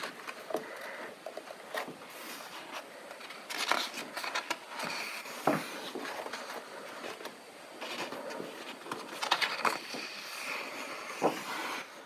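Paper pages of a coloring book being turned by hand, with scattered rustling and soft crackling of the paper.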